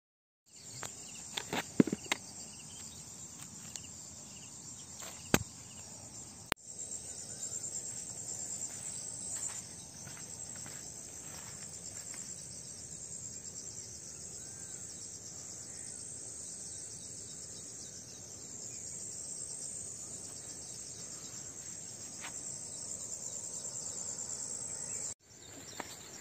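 Insects chirring in a steady, high, finely pulsing drone that stops abruptly near the end. A few sharp clicks or taps come through in the first seven seconds.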